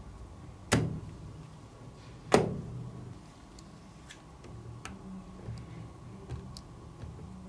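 Small magnetic balls snapping together: two sharp clicks about a second and a half apart, then several faint light ticks as magnetic-ball pieces are pressed into place on a magnetic-ball model.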